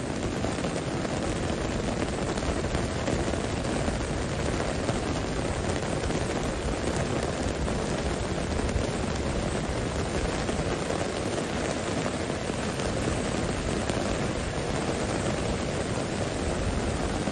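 Heavy rain falling, a steady, even rushing hiss that does not let up.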